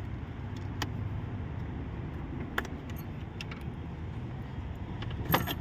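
A few sharp clicks and light knocks of plastic coolant hose clips and connectors being worked loose by hand, over a steady low background rumble; the loudest click comes near the end.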